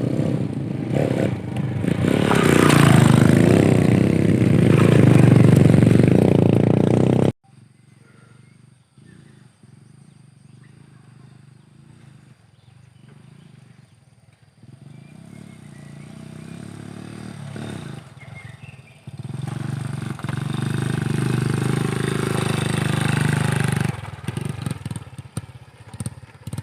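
Motorcycle engine running loudly, cutting off abruptly about seven seconds in. After a quieter stretch, an engine rises again and runs steadily, then cuts off suddenly near the end.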